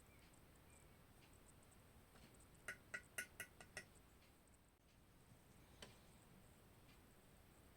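A quick run of about six light, sharp clicks with a brief ring, then a single click a few seconds later: small hard objects being handled and set down on a work table, against near silence.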